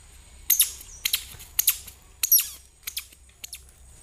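A series of short, high-pitched falling chirps, about seven in quick succession, beginning about half a second in.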